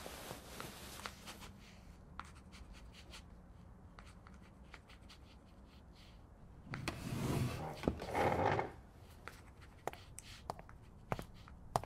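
Pencil writing on paper: soft scratching with scattered light taps and clicks, and a louder swell of noise in two parts between about seven and eight and a half seconds in.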